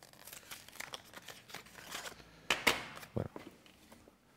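Hands handling a small tin of sardines in its cardboard sleeve: soft rustling and scraping of card and metal, with a sharp clack about two and a half seconds in and a smaller knock shortly after.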